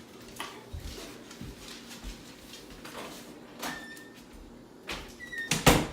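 Scattered knocks and clatter of household handling, with a louder burst of several bangs near the end.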